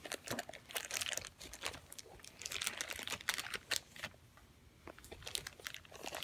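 Plastic zip-top bag crinkling and crackling under fingers that press and smear the paint inside it, in quick irregular bursts, with a quieter stretch about four seconds in.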